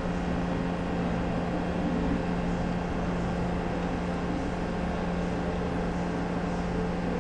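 Steady mechanical hum with a constant low drone, the background noise of a workshop fan or similar machine, unchanging throughout.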